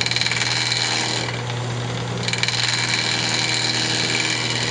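Wood lathe running with a steady hum while a turning tool cuts the spinning square cherry blank in two stretches, a rapid chattering rasp of the tool meeting the corners as the piece is trued up.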